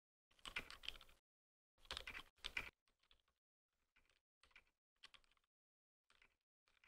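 Typing on a custom 60% mechanical keyboard with lubed Durock Dolphin silent linear switches (Tofu60 acrylic case, brass plate): short bursts of soft, muffled keystrokes. The first two bursts are boosted and loud, then from about three seconds in the keystrokes play much quieter, at their natural level.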